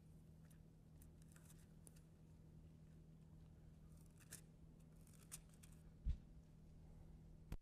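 Near silence in a church sanctuary: faint rustles of Bible pages being turned, and a single soft low thump about six seconds in.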